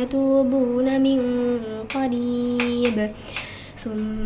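A woman's voice in melodic Quran recitation (murottal), drawing out long held notes that step down in pitch, with a brief break about three seconds in before the next held note.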